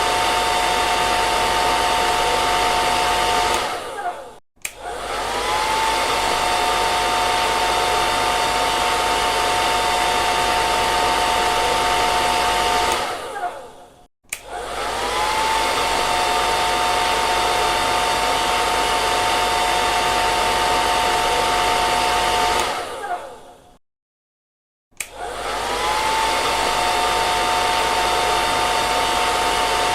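Hair dryer blowing, a steady rush of air with a two-note motor whine. Three times it dies away and starts again, the whine rising in pitch as the motor spins back up.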